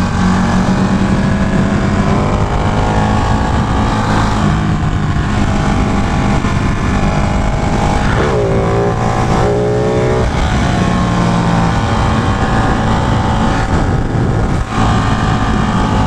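Ducati Panigale 1199's V-twin engine running at highway speed under heavy wind rush. The engine pitch dips and then climbs again about eight seconds in.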